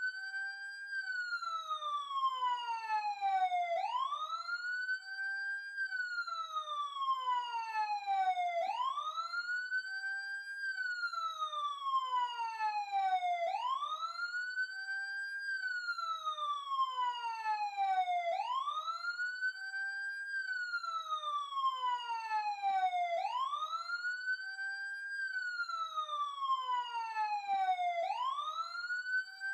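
Emergency-vehicle siren wailing. The pitch sweeps up quickly, holds briefly at the top, then falls slowly, and the cycle repeats about every five seconds.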